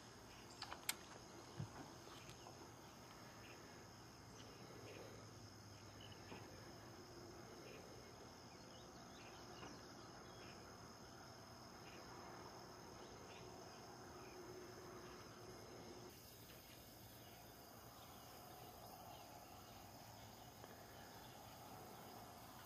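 Near silence: faint, steady high-pitched insect chirring, with a few soft clicks in the first two seconds.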